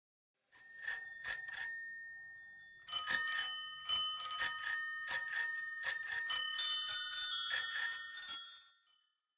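Bicycle bells ringing as part of a soundtrack: a few spaced rings, then from about three seconds in a quick flurry of rings joined by a second, lower-pitched bell, fading out near the end.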